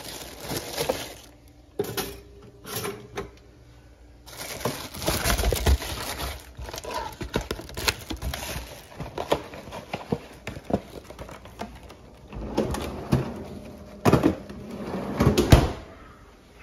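Handling noises: rustling and crinkling of a frozen-waffle box and its wrapper, with scattered clicks and knocks, loudest in stretches about five seconds in and again near the end.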